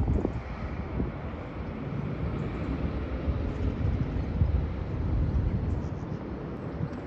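Low, steady outdoor rumble with wind buffeting the microphone.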